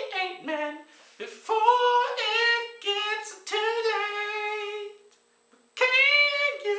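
A man singing long, high-pitched held notes, with a short pause about five seconds in.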